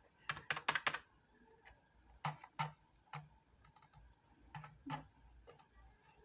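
Computer keyboard keys clicking: a quick cluster of presses in the first second, then single clicks every second or so.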